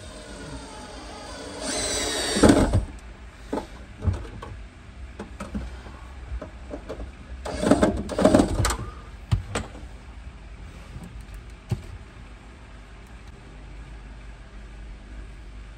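Work noises from fitting hardware into a subwoofer enclosure: two spells of loud scraping or grinding with a pitched whine, about two seconds in and again around eight seconds, among scattered knocks and clicks, over a steady low hum.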